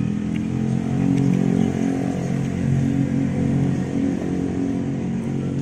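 A motor vehicle's engine running with a steady low hum.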